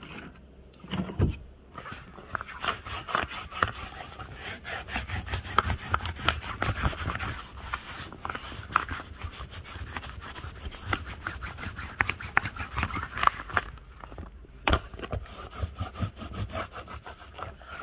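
Quick back-and-forth rubbing strokes by hand on a rigid inflatable boat's PVC/Hypalon fabric, preparing the surface for glue. The strokes start about two seconds in.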